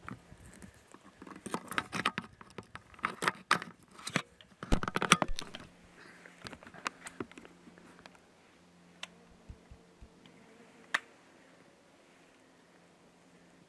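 Clothing rustling and small clicks and knocks of a hunter shifting and handling his gear in a tree stand, busiest in the first six seconds, then quieter with a single sharp click near eleven seconds.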